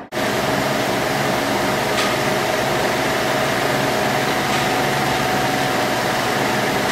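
Loud, steady machine noise: an even rush of air with a constant hum, with one faint click about two seconds in.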